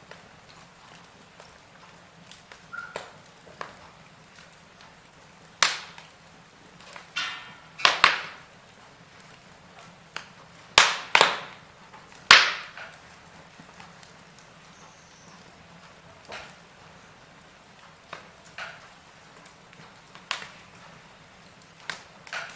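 Wood fire burning in a fireplace: sharp, irregular crackles and pops over a faint steady background, with the loudest cluster of pops about halfway through.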